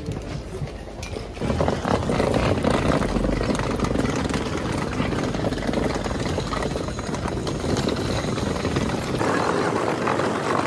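Hard-shell rolling suitcase wheels rattling over gravel and paving stones, with footsteps: a dense, steady clatter that starts about a second and a half in.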